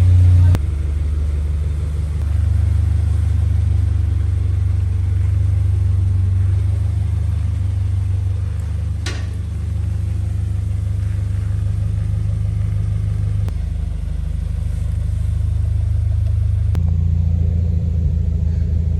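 A car running with a steady low engine drone and rumble, shifting slightly in level a few times.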